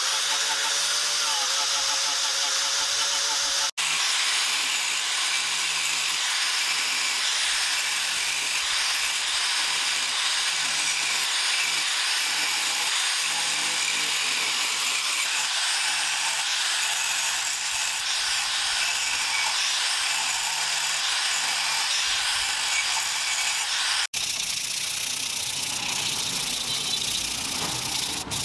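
Electric angle grinder running with an abrasive disc against a sword's metal handle collar and wooden grip, in a steady grinding hiss. About 24 seconds in it gives way to sandpaper rubbed by hand along the wooden handle.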